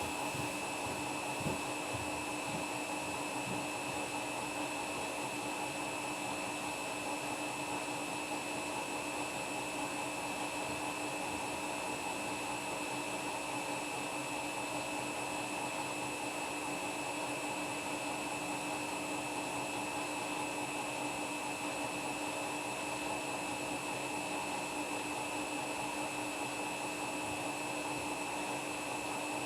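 Washing machine spinning with footballs in the drum: a steady motor whine over an even rushing noise, with one light knock about a second and a half in.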